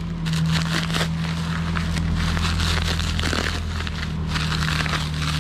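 Plastic bubble wrap crinkling and crackling as it is pulled off and handled, with many small sharp crackles throughout. A steady low hum runs underneath.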